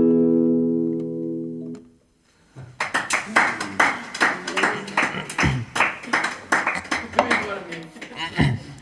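The final chord of a song on a nylon-string classical guitar rings out and fades away within about two seconds. After a moment of silence, a few people clap irregularly.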